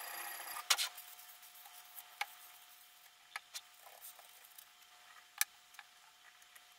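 A rasp of a sharpening stone on steel fades out in the first half-second, then scattered sharp clicks and taps as the metal guide rod and stone holder of a guided-rod knife sharpener are handled and knock against the aluminium frame.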